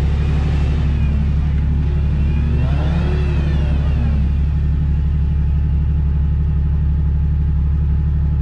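Steady low engine idle, with an engine revving up and back down twice in the first half, during a mud recovery of a stuck Jeep Wrangler.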